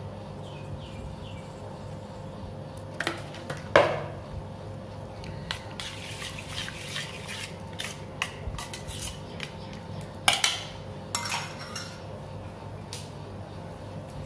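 A metal spoon scraping and clinking against a stainless steel bowl as curd vermicelli is mixed to stir in salt. There are a few sharper clinks, the loudest about four seconds in and again around ten seconds.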